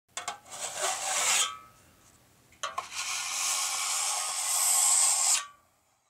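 Two bursts of harsh, high scraping noise. The first lasts about a second and a half. The second begins with a sharp click and runs about three seconds before cutting off suddenly.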